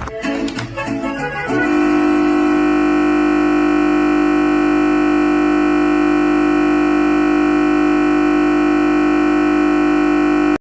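Music playing from a PC breaks off about a second and a half in and turns into a loud, unchanging buzzing drone: the sound card's buffer stuck looping as the system crashes to a blue screen after its SSD is pulled. The drone cuts off suddenly at the end.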